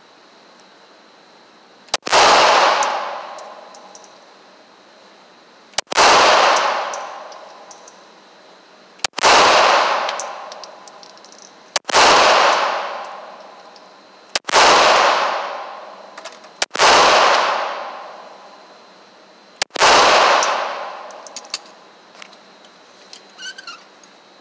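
Seven handgun shots fired one at a time, a few seconds apart, each a sharp crack followed by a long echoing tail from the indoor range.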